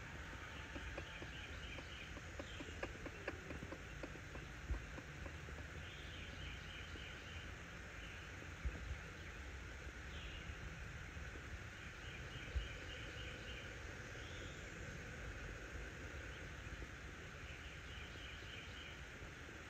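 Newly hatched chicken chicks under a brooding hen giving faint, soft trilling peeps, a short rapid trill every few seconds, over a low background hiss. A few dull low thumps are also heard.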